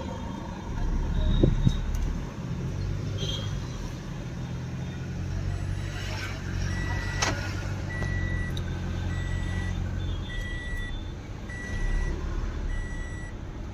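Car engine and road noise heard from inside the cabin while driving, with a loud low thump about a second and a half in. From about seven seconds in, a high electronic beep repeats about once a second.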